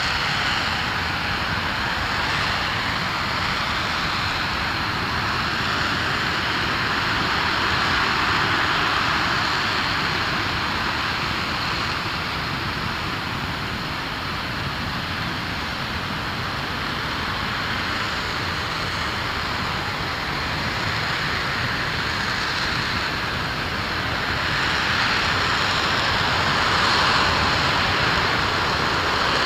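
Aerojet Rocketdyne RS-25 liquid hydrogen–liquid oxygen rocket engine firing continuously in a static hot-fire test: a steady, unbroken rushing noise with a deep rumble, swelling slightly now and then.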